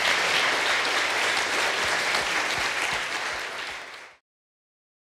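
Audience applauding at the end of a panel discussion, a steady clatter of many hands clapping that cuts off abruptly about four seconds in, followed by silence.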